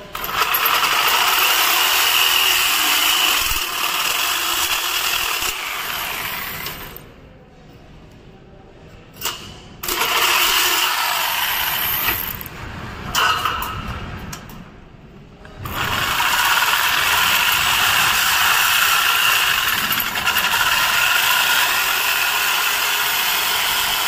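DeWalt electric jigsaw sawing through thin perforated galvanized steel cable tray, a loud steady buzzing rasp of the blade in the sheet metal. The cutting stops twice, once about a third of the way in and again just past the middle, with a short spell of sawing between, then runs steadily again.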